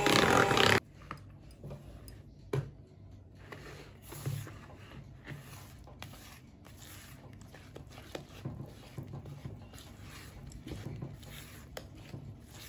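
An electric hand mixer beating cake batter at its lowest speed stops abruptly under a second in. After that come soft, wet squelching and scraping strokes as a silicone spatula stirs and folds the thick batter in a plastic bowl, with one sharp click about two and a half seconds in.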